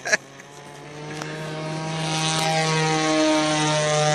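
O.S. 46 LA two-stroke glow (nitro) engine of a Gemini model plane running at a steady pitch, growing louder over the first couple of seconds and then holding. Two sharp clicks come right at the start.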